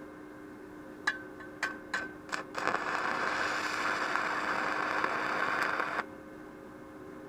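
Welding arc from a MIG-250MT welder. It sputters on and off four times as it is struck, then burns with a steady crackle for about three and a half seconds and cuts off suddenly, over the machine's steady hum.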